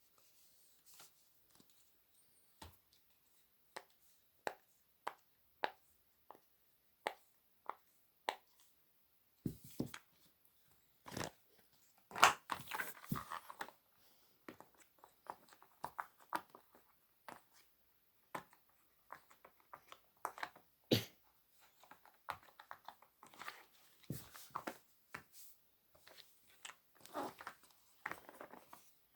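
Silicone pop-it fidget toy bubbles being pressed, a string of separate sharp pops with a denser run of pops and handling about twelve seconds in.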